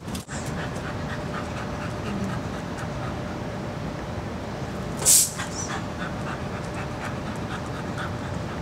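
Bedlington terrier panting in quick, even breaths after chasing the ball, with one short loud hiss about five seconds in.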